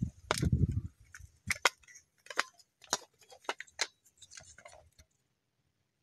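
Screwdriver clicking and tapping against a car's interior door handle assembly: a string of sharp, irregular clicks, with dull handling bumps in the first second. The clicking stops about a second before the end.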